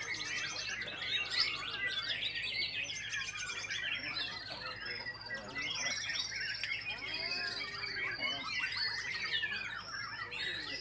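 White-rumped shamas singing at once, a dense, unbroken tangle of overlapping whistles, rapid trills and chirps from several birds.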